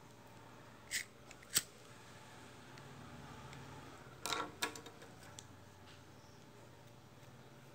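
A few light, sharp clicks and clatters from hands handling a beaded bracelet and small tools: two clicks a little over half a second apart about a second in, then a quick cluster about four seconds in.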